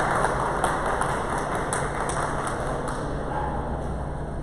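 Scattered hand claps from spectators, tapering off over the first couple of seconds, over a steady background of indistinct crowd chatter.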